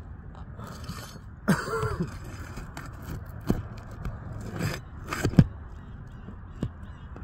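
Scattered knocks, taps and scrapes of hands and tools working on roof shingles, over a steady low rumble, with a short squeak about one and a half seconds in.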